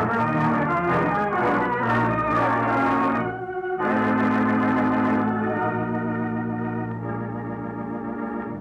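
Organ music bridge marking a scene change in a radio drama: sustained chords, a short break about three seconds in, then a long held chord that slowly fades out.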